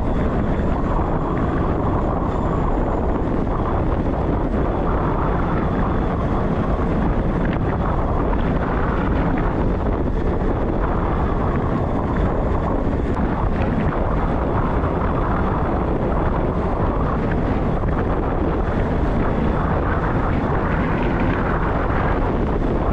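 Steady rush of wind over the microphone of a camera on a moving bike, with a constant low rumble underneath.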